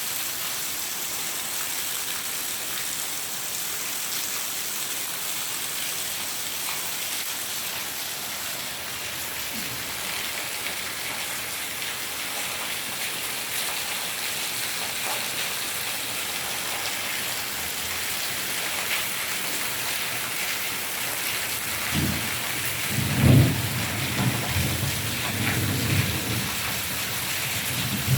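Heavy rain shower falling steadily, a dense even hiss. In the last six seconds low rumbles of thunder come and go, loudest about 23 seconds in.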